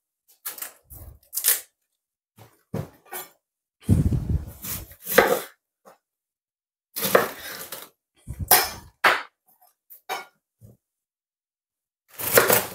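Raw green cabbage being handled and cut: outer leaves snapped and torn off by hand, then a large kitchen knife crunching through the cabbage onto a bamboo cutting board. It comes as a series of separate crisp cracks and crunches with short quiet gaps, a few of them with a dull knock of the board.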